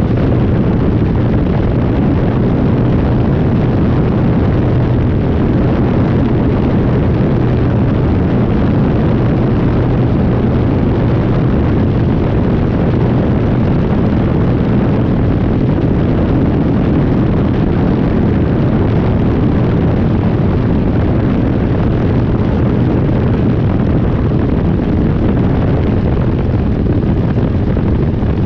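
Rotax 503 two-cylinder two-stroke engine of a Phantom X1-E ultralight running loud and steady, a constant low drone with no change in pitch.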